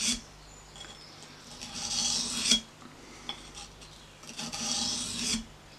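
A Mora bushcraft knife pushed along an oiled bench stone in sharpening strokes. The end of one stroke is heard at the start, then two more scraping strokes of about a second each, one about two seconds in and one near the end. Each stroke stops sharply as the blade is lifted off the stone.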